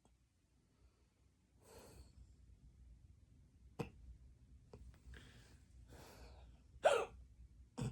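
A person hiccuping: three sharp hiccups, about four seconds in, about seven seconds in (the loudest, with a brief voiced catch) and at the very end, with breaths in between.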